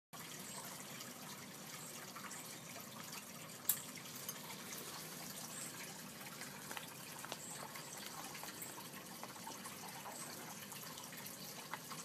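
African grey parrot chewing a plastic pen with its beak: small scattered clicks and crackles over a steady background hiss, with one sharper click a little under four seconds in.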